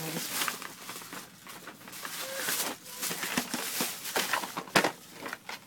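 Rustling and crinkling of gift wrapping paper being handled, in irregular bursts, with a sharp knock near the end.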